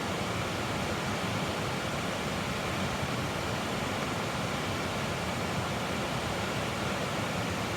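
Steady rushing of a flowing creek, an even noise with no breaks.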